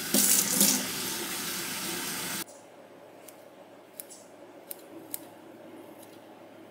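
A loud rushing hiss, like running water, cuts off suddenly about two and a half seconds in. After it, kitchen scissors give a few short sharp snips as they cut through imitation crab sticks.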